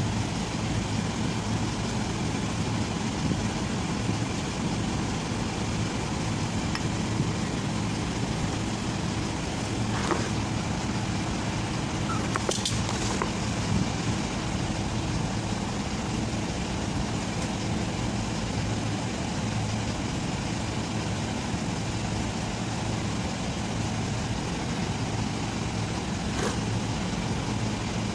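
Engine running steadily at idle, a low even drone, with a few faint clicks.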